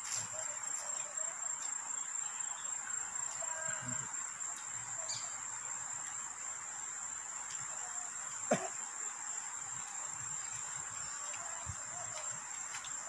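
Insects, crickets or similar, keeping up a steady high-pitched drone, with one short sharp click about two-thirds of the way through.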